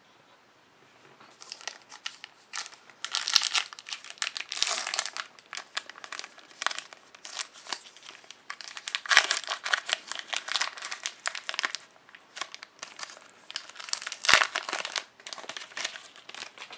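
Foil trading-card pack wrapper crinkling and tearing as it is opened, in rustling bursts that are loudest a few seconds in, about halfway, and near the end.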